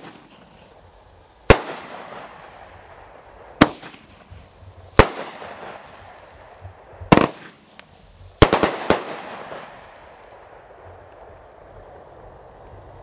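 Widow Maker consumer fireworks cake firing aerial shells: about nine sharp bangs of bursts breaking overhead, one to two seconds apart and then a quick cluster of three or four about two-thirds of the way in, each followed by a fading hiss of crackling stars. The shots stop over the last few seconds as the display dies away.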